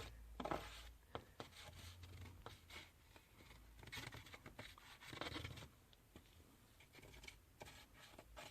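Faint scraping and small clicks of a tool's edge pushing wall-repair paste into a crack, with a longer scrape about four to five seconds in.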